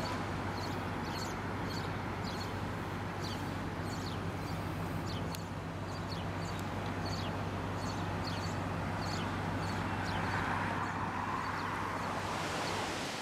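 Street traffic: a vehicle engine idles with a steady low hum while small birds chirp repeatedly in short, high, falling notes. About ten seconds in, a louder rush of traffic swells briefly.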